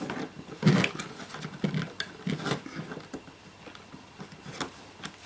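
Plastic housing parts and wiring of an in-flight entertainment controller being handled and fitted together by hand: irregular small clicks and knocks, the loudest about a second in, growing sparser toward the end.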